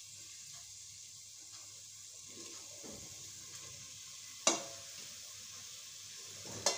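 Onion and masala sizzling steadily in oil in a pressure cooker, with two sharp metallic clinks, about four and a half seconds in and near the end, as a steel plate knocks against the cooker's rim while capsicum cubes are tipped in.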